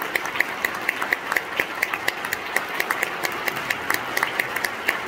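Audience applauding after a chorus number. One nearby person's claps stand out at about four or five a second over the crowd's.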